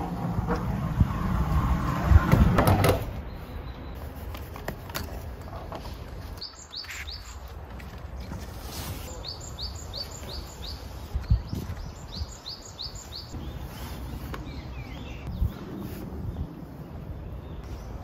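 Blankets rustling as bedding is spread on a camp cot, loudest in the first three seconds. Then a small bird chirping in quick runs of four or five high notes, with two soft knocks.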